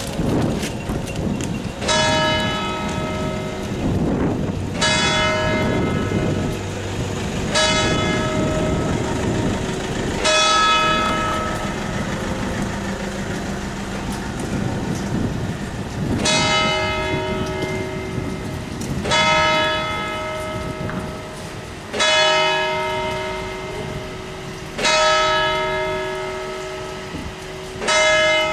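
The largest church bell, cast by Ludovicus Antonius Silvent, tolled by a hammer: nine single strikes about three seconds apart, with a longer pause after the fourth, each ringing on and fading. Wind on the microphone rushes underneath.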